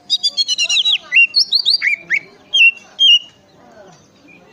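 Oriental magpie-robin (kacer) singing. It opens with a rapid run of repeated high whistled notes, then gives several separate whistles sliding up and down, and stops about three seconds in.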